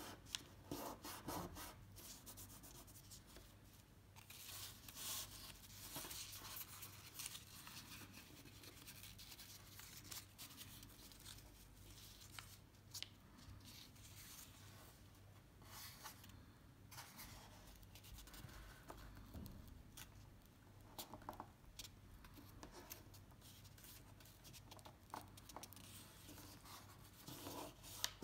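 Faint rustling and scraping of a sheet of paper being folded and creased by hand, in short irregular bouts.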